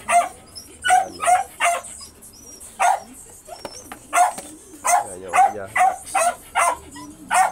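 A small dog yapping repeatedly: short, high-pitched barks about three a second, with a pause of about a second near the middle.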